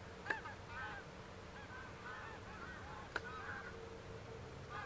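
Faint, repeated honking bird calls, several overlapping, with two sharp clicks about three seconds apart.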